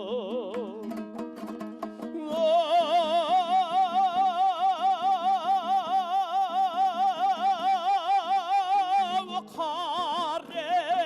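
Kazakh folk song sung with a wide vibrato over a plucked string accompaniment. A few quick plucked strokes come about a second in, then the singer holds one long note for about seven seconds before the melody moves on.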